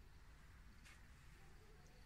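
Near silence: faint low background hum, with one faint click a little under a second in.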